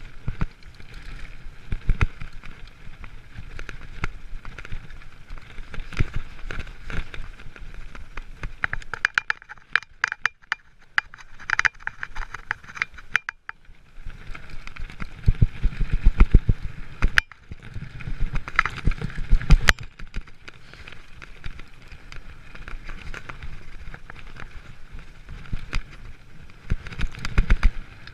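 Giant mountain bike ridden fast down a dirt and gravel forest trail: tyres rumbling over the ground, with frequent rattles and knocks from the bike over bumps, the loudest knocks about two-thirds of the way through.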